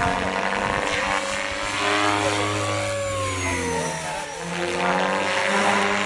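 SAB Goblin 700 electric RC helicopter with a three-bladed main rotor flying past in the air: a whining rotor and motor hum with blade swish, its pitch sliding up and down as it passes, swelling at the start and again near the end.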